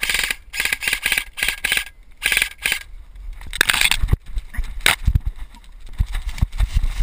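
Airsoft gun firing four or five short bursts in quick succession, then the heavy, quick footfalls of someone running.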